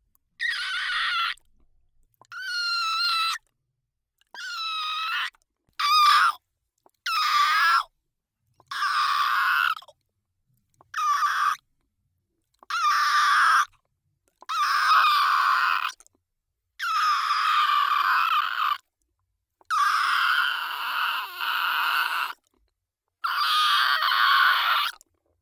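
Sound-effect monster vocalisations: about a dozen short, high-pitched creature cries, some sliding in pitch, each cut off into silence before the next.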